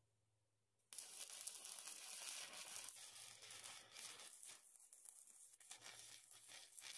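Stick-welding arc from a WIILDIS stick welder burning a 3/32-inch rod: the arc strikes about a second in and then crackles steadily.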